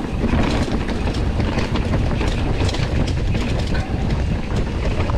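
Mountain bike riding fast down a dirt singletrack: a steady low rumble of tyres and air with many small knocks and rattles as the bike jolts over the rough trail.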